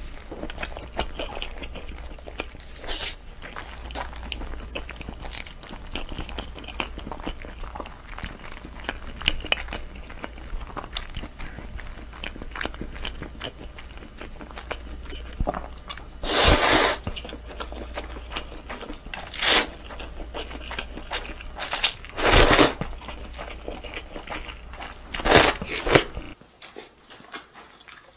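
A person chewing raw salmon sashimi: wet mouth sounds and small clicks throughout, with four louder eating noises in the second half.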